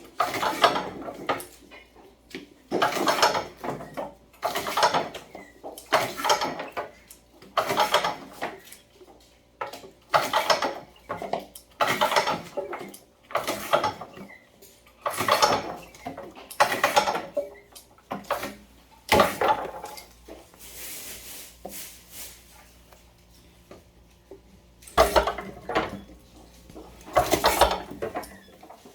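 Semi-automatic green plum (maesil) pit-removing machine worked stroke after stroke, each stroke a short mechanical clatter, about one every one and a half to two seconds, with a pause of a few seconds near the end.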